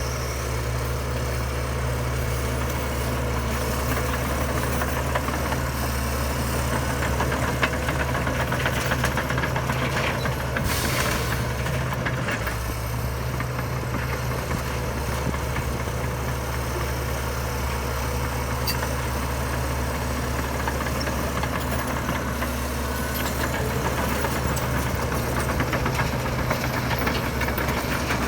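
Heavy diesel earthmoving machinery running steadily with a low engine drone, with a short burst of hiss about ten seconds in.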